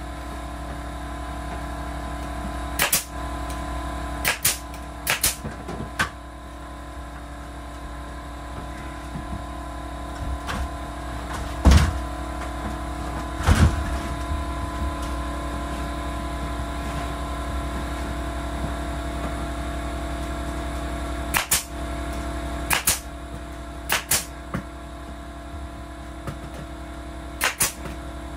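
Pneumatic nail gun firing into knotty pine wall boards: sharp single shots in small groups a second or so apart, over a steady machine drone. Two duller thuds come near the middle.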